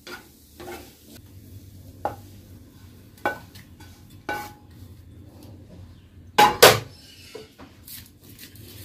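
Wooden spatula scraping coconut burfi mixture out of a pan into a steel plate. Scattered knocks and clinks of spatula and pan against metal, the loudest a close pair about six and a half seconds in.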